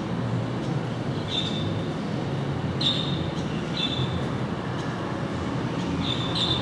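Twin-engine jet airliner passing overhead, its engines a steady roar. Four short high chirps sound over it.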